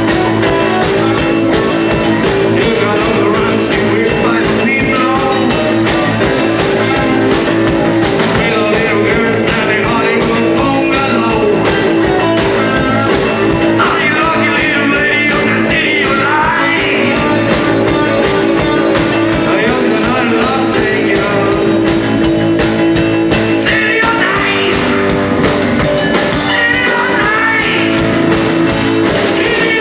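Rock band playing with a singer and guitar over steady held chords.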